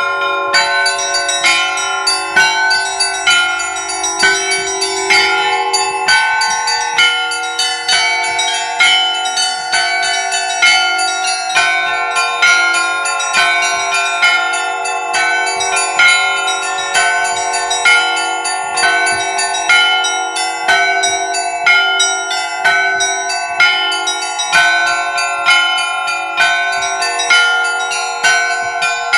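Russian church bells cast by the Liteks foundry, rung together in a steady repeating pattern. Several bells of different pitches are struck in quick succession over a regular lower beat, each note ringing on into the next.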